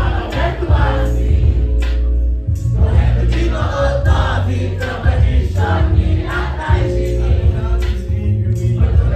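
Live hip-hop performance over a loud, bass-heavy beat, with rapped vocals on microphone and many voices singing along, recorded from within the crowd.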